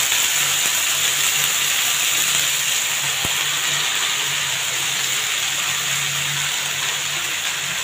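Chopped fenugreek leaves sizzling in hot oil in a frying pan: a steady hiss that eases only slightly, with one small click about three seconds in.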